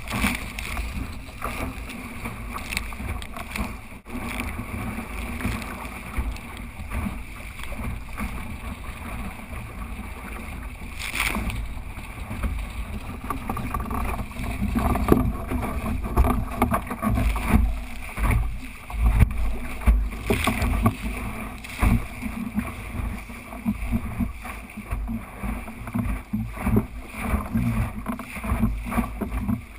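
Wind buffeting the microphone and water rushing and slapping along the hull of a small sailing dinghy under way, a continuous gusty noise that grows louder and choppier about halfway through.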